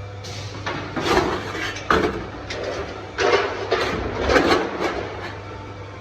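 Clatter and knocks of metal stove parts being handled and worked in a factory, in several uneven bursts, over a steady low machine hum.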